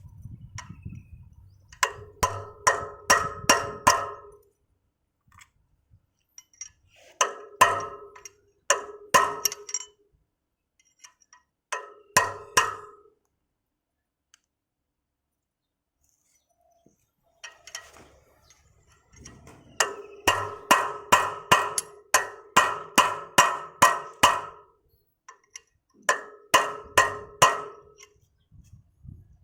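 Hammer striking metal in quick runs of ringing blows, about five a second, in several bursts with pauses between them.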